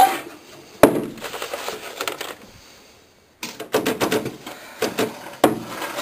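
Typewriter carrying case being handled and shut: a sharp knock about a second in, then a run of small clicks and rattles from about halfway, and another sharp click near the end as the lid closes.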